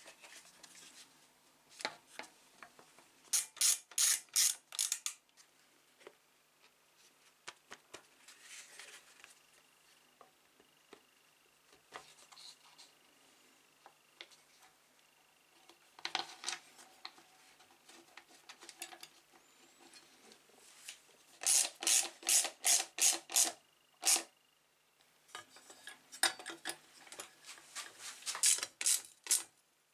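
Hand ratchet clicking in three short runs of rapid, evenly spaced clicks as bolts are tightened, with softer knocks and rubbing of plastic engine parts being fitted in between.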